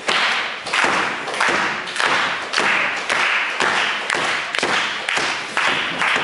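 Audience clapping in unison, a steady beat of about two claps a second, each clap echoing in the hall.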